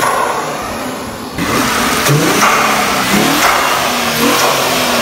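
Infiniti Q50's 3.0-litre twin-turbo V6 being revved in several quick blips, each rising and falling in pitch, through freshly fitted open cone-filter intakes.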